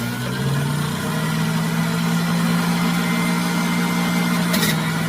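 Hamilton Beach Easy Clean juice extractor motor running, its steady hum rising slightly in pitch in the first second and then holding, with a brief knock near the end.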